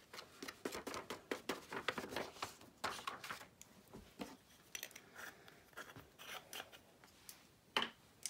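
Faint rustling and crinkling of a folded sheet of paper used as a funnel to pour loose embossing powder back into its jar, a dense run of small crackles for the first few seconds. After that come scattered light taps and clicks as the small jar and its lid are handled, with one sharper tick near the end.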